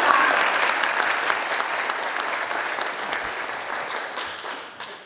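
Audience applauding. The clapping thins out and fades away near the end.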